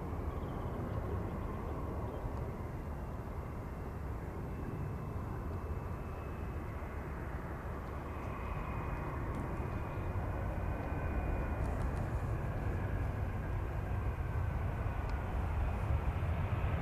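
Airbus A320-214 airliner's CFM56 jet engines during touchdown and landing rollout: a steady rumble with a faint thin whine, growing somewhat louder in the second half.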